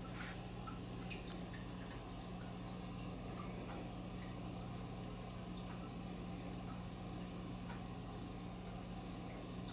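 Room tone: a steady low hum with scattered faint ticks.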